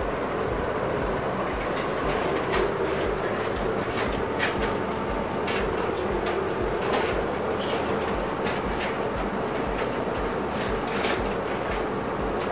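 Steady mechanical running hum with a regular low throb about three times a second and scattered light clicks.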